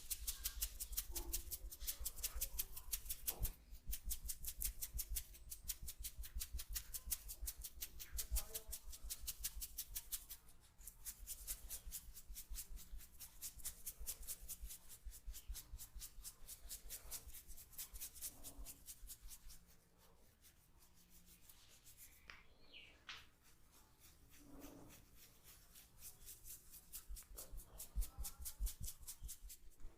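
A comb scratching rapidly and rhythmically over the scalp and through hair, several quick strokes a second. There are a couple of brief breaks, and the strokes grow softer and sparser about two-thirds of the way through.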